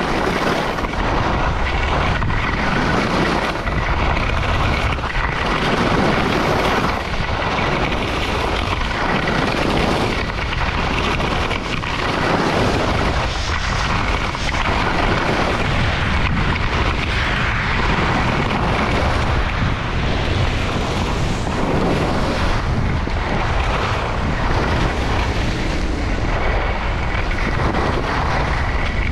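Wind rushing over the microphone with the scrape of skis on choppy snow during a downhill run, the scraping swelling every second or two with the turns.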